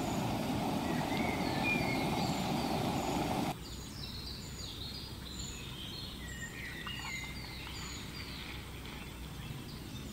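A noodle-and-egg mixture frying in hot oil in a pan over a portable gas canister stove: a dense, steady sizzling noise that cuts off suddenly about three and a half seconds in. After that comes quieter outdoor ambience, with small birds chirping repeatedly.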